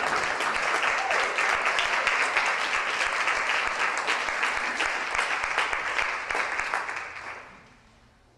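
Audience applauding: dense, even clapping that dies away about seven seconds in.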